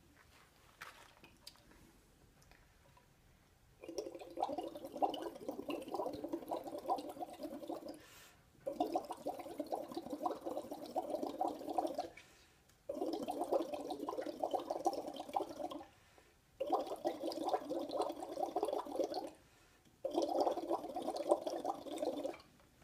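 Bubbling from exhaled breath blown through a pipette into red cabbage indicator juice in an Erlenmeyer flask. Five long bursts of a few seconds each come with short pauses for breath, the first starting about four seconds in. The carbon dioxide bubbled in is what shifts the indicator's colour.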